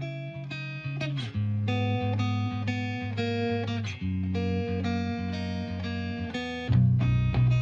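Background music led by plucked guitar, with notes picked in a steady rhythm over a bass line that gets louder near the end.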